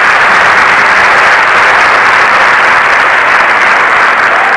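Large theatre audience applauding, loud and steady, easing slightly near the end.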